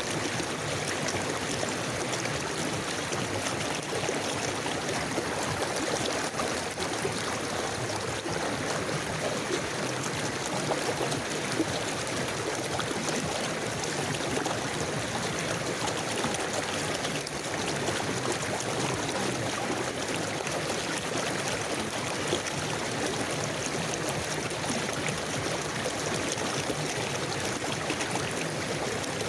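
A river or stream flowing steadily over stones, a continuous rushing and gurgling of water with no breaks.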